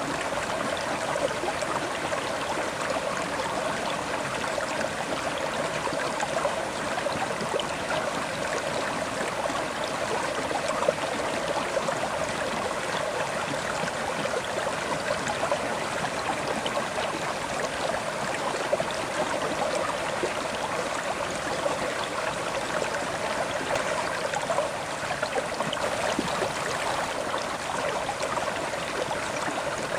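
River water flowing steadily over rocks, an even rushing and gurgling.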